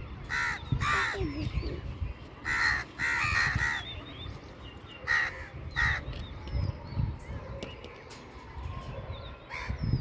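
Crow cawing in short runs of harsh calls: two, then three, then two, and a single caw near the end, over a steady low background rumble.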